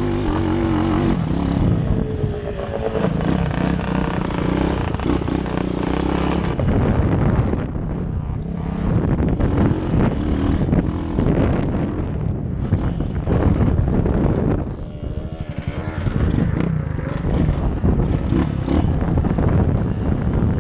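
Dirt bike engine being ridden, its pitch rising and falling with the throttle, with wind buffeting the helmet-mounted microphone.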